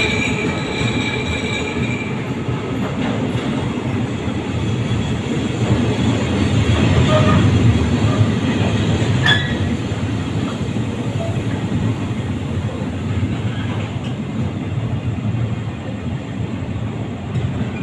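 A freight train of railway tank wagons rolling past, a steady rumble of steel wheels on the rails. A high wheel squeal fades out about two seconds in.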